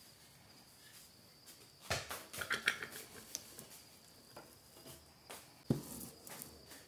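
Chopped prickly pear cactus pads tipped from an enamel bowl into a metal saucepan: a brief rustling patter of the pieces sliding in about two seconds in, then a few light clinks and one sharp knock near the end as the bowl is set down.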